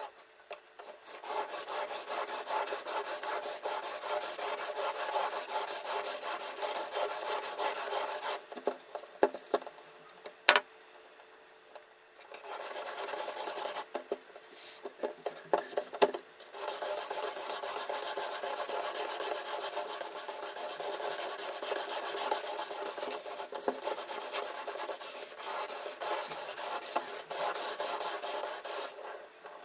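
Sharpening stone on a fixed-angle knife sharpener's guide rod rasping back and forth along a steel knife edge in rapid strokes. The grinding stops twice, about a third of the way in and again near the middle, for a few seconds broken only by a few sharp clicks.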